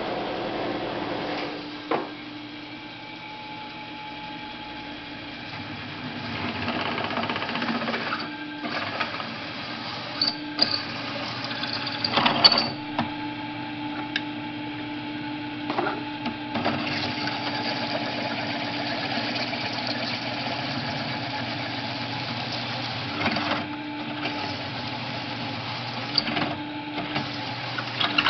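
Drill press running steadily while an 11/16-inch twist drill bores without a pilot hole through steel pipe, guided by the jig's block, with scattered sharp clinks and knocks, the loudest about twelve seconds in.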